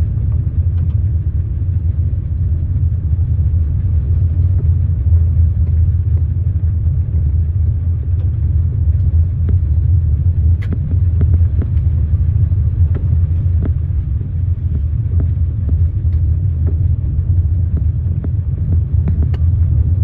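Steady low rumble of a car's engine and tyres, heard from inside the cabin while driving slowly along an unpaved park road, with scattered light ticks.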